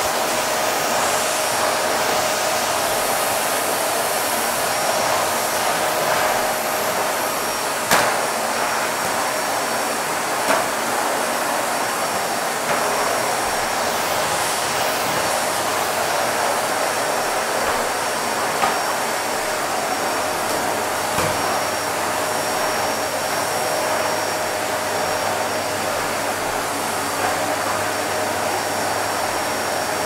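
Vacuum cleaner running steadily: an even rushing of air with a steady motor whine, broken by a few brief clicks, the loudest about eight seconds in. A low hum joins about two-thirds of the way through.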